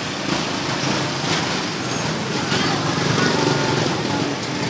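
A small motor running steadily amid street noise.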